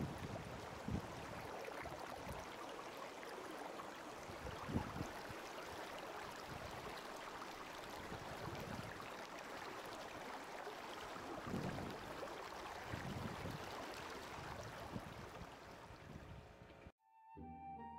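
Steady outdoor rush of water at the edge of a bay, with a few soft low thumps. It cuts off suddenly near the end, and soft music with held notes begins.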